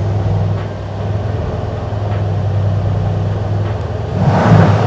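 Mercedes-AMG C63 Estate's 4.0-litre twin-turbo V8 idling steadily through its exhaust, with a short rev that swells louder about four seconds in.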